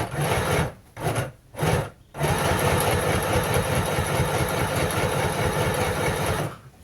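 Electric sewing machine stitching a hem in starts and stops: a short run, two brief bursts about one and two seconds in, then a steady run of about four seconds that stops near the end.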